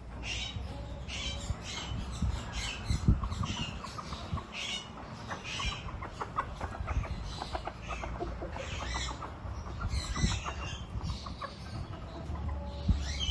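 Birds calling with short, sharp squawks repeated many times over, mixed with occasional low thumps.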